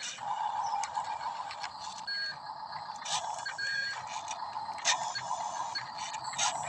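Small electric gear motors of a radio-controlled toy backhoe whirring, stopping briefly and starting again, with frequent plastic clicks and ticks.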